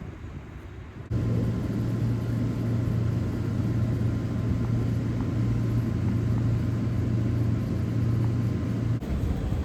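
A steady low mechanical drone with a strong low hum, starting suddenly about a second in and dropping away shortly before the end.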